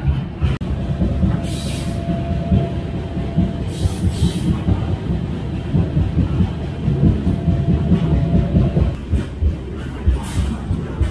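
Freight car in motion heard from on board: a steady low rumble with irregular clanks and rattles, a faint steady whine through most of it, and three brief hissing swells.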